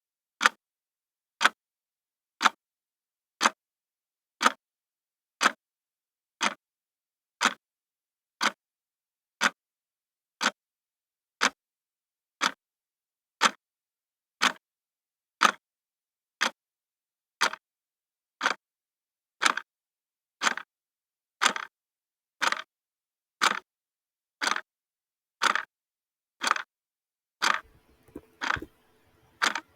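A clock ticking steadily, one sharp tick each second. A faint background sound comes in near the end.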